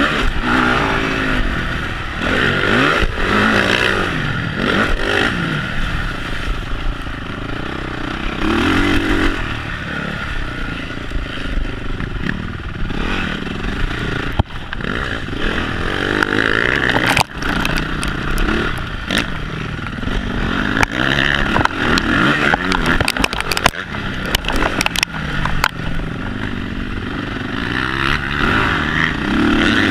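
Honda CRF450 motocross bike's single-cylinder four-stroke engine through a Yoshimura twin exhaust, revving up and down repeatedly while riding a dirt track, heard from a camera on the handlebars. A run of sharp clicks and knocks comes past the middle.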